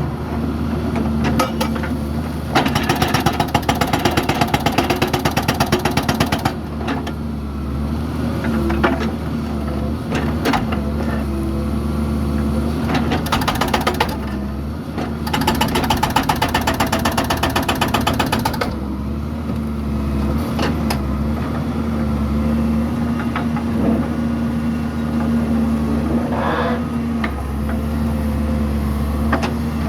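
Doosan DX140W wheeled excavator's diesel engine running steadily under work, with stretches of fast, even clattering, twice.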